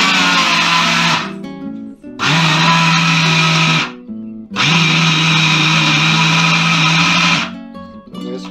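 Bajaj mixer grinder running in three pulses, a short one, a slightly longer one, then a longer run of about three seconds, grinding cashews to a fine powder in its small stainless-steel jar.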